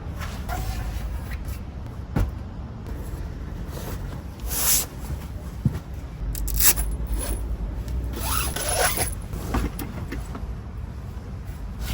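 Steady low rumble with a sharp click and several short scraping, rustling handling noises.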